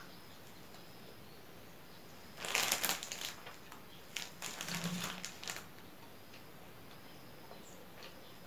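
Thin plastic bag crinkling as it is handled, in two bouts about two and a half and four seconds in.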